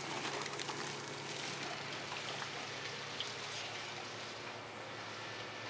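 Steady splashing and trickling of circulating water in aquarium tanks, with a faint steady hum underneath.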